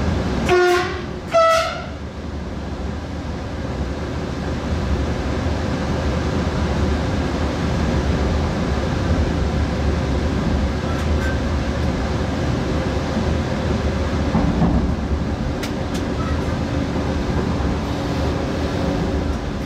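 Train horn sounded in two short blasts about a second apart, a lower note then a higher one. After that comes the steady rumble of the train running along the track, heard from the driver's cab.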